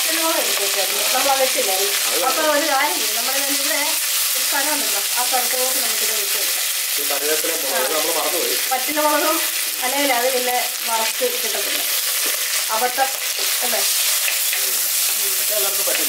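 Chopped radish leaves sizzling in hot coconut oil with fried dal in a clay pot, a steady hiss, while a steel ladle stirs them.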